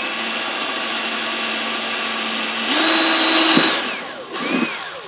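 Electric drill boring small holes through a mounting plate: a steady motor whine that steps up in speed about two and a half seconds in, winds down about a second later, then a short rising-and-falling burst of the trigger near the end.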